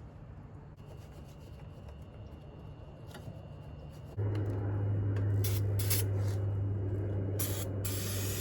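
Wire brush scrubbing rusty metal on a car, a scratchy rubbing. About four seconds in, a louder steady machine hum starts abruptly, with several short bursts of hiss over it.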